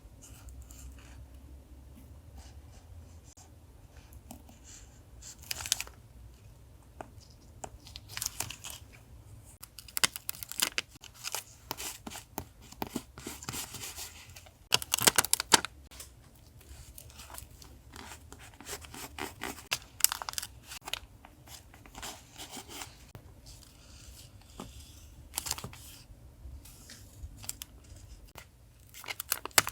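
Paper being handled by hand, torn and crinkled in irregular rustling bursts, busiest through the middle and quieter near the start.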